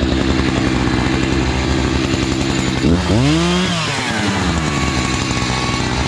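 Chainsaw engine running steadily, revved up once about three seconds in with the pitch rising, then falling back to steady running.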